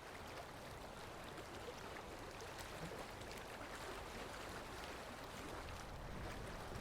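Gentle water sound: a steady wash with small faint splashes throughout.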